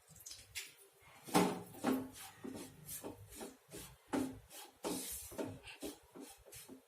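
A spatula scraping and stirring wheat flour as it roasts in ghee in a pan, in short irregular strokes about twice a second.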